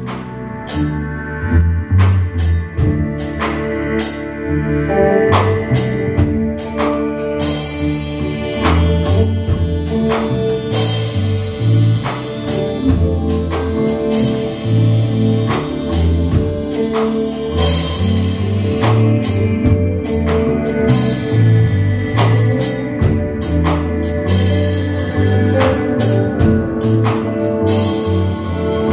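Live rock band playing: electric guitars, drum kit and keyboard together, with a steady drumbeat. Cymbals come in about seven seconds in.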